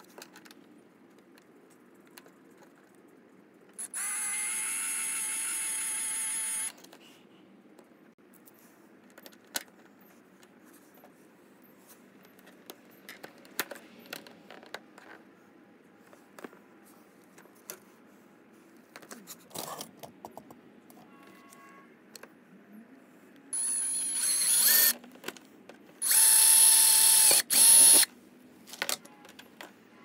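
Cordless drill running in three bursts with a steady whine: one of nearly three seconds starting about four seconds in, as the bit bores into the scooter's plastic body panel, then two shorter runs near the end. Small clicks and taps of handling parts come in between.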